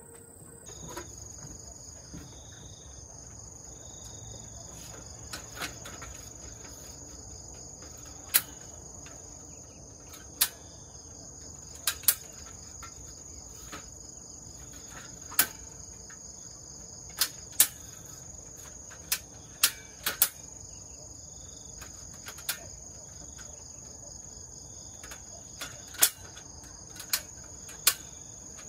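About a dozen sharp metal clicks and clacks at irregular intervals, from an aluminium multi-position folding ladder as it is handled and its hinge locks are set. Under them runs a steady high-pitched drone of insects.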